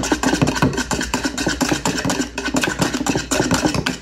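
Wire whisk beating rapidly against a plastic bowl: a fast, even clatter of strokes, several a second, as egg whites are whipped by hand with sugar being added.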